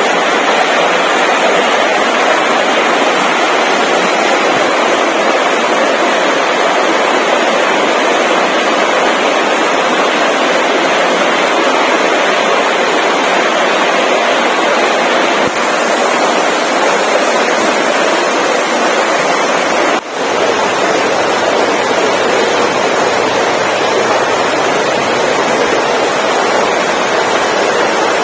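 Steady loud rushing noise with no distinct events, briefly dipping once about twenty seconds in.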